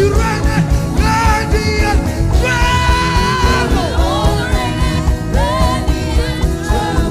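Live worship band playing a song with a steady beat, with sung vocal lines over it.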